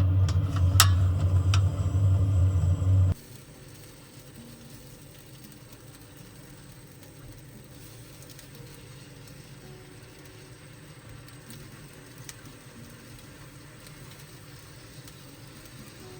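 A steady low hum with a few sharp clicks, cutting off abruptly about three seconds in and leaving a faint, even hiss.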